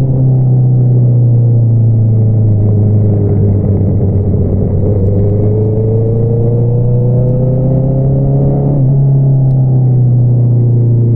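Honda CBR650R inline-four engine through an Akrapovič single-outlet exhaust, running loud and steady under way. Its pitch climbs slowly for a few seconds, then drops abruptly near the end.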